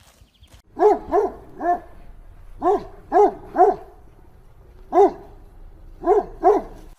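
Dog barking: nine short barks in quick groups of two or three, with pauses between the groups.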